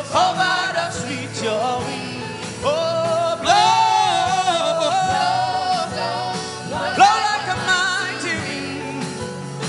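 Gospel worship singing with instrumental backing: a voice sliding and holding long notes without clear words, over a steady beat.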